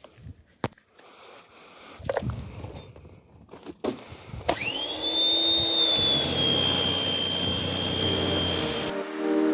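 Pressure washer starting up about halfway in: a sudden loud rush of spray with a high whine that rises quickly and then holds steady, cutting off shortly before the end. A few light knocks come before it.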